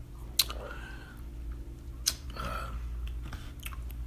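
Someone chewing a Jolly Rancher hard candy close to the microphone: two sharp crunches, about a second and a half apart, each followed by a brief mouth sound, over a steady low hum.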